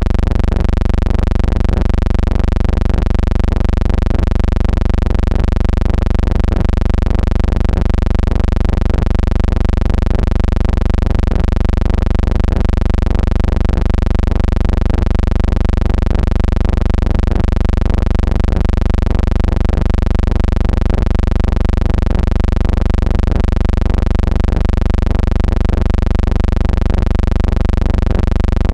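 Steady, loud electrical hum with a buzzing series of overtones, unchanging throughout: the noise laid on a transfer of silent film footage rather than any sound of the aircraft.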